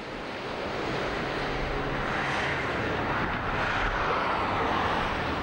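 Aircraft engine noise of a plane passing, swelling steadily and loudest near the end before it starts to fade.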